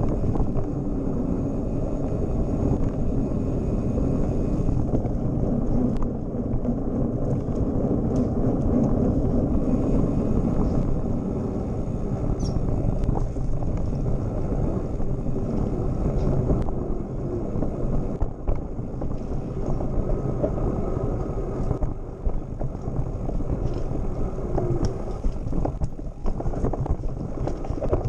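Mountain bike rolling along a dirt singletrack: a steady rumble of tyres and frame with wind buffeting the microphone. From about three-quarters of the way in it turns choppier, with jolts and rattling as the bike crosses rockier ground.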